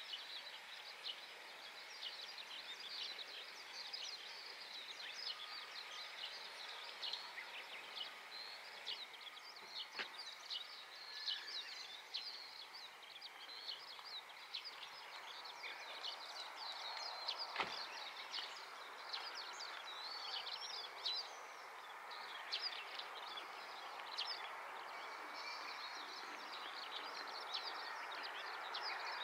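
Many small birds chirping over a faint, even wash of distant background noise that slowly grows louder toward the end.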